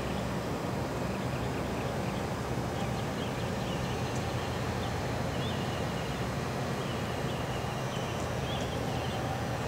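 Steady rumble of highway traffic, with faint, high, short repeated insect chirps over it from about three seconds in.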